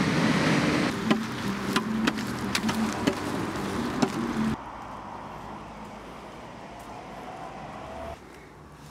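Street traffic: a car passes, followed by a few sharp taps that fit footsteps on the pavement. The sound drops abruptly to quieter street ambience about four and a half seconds in.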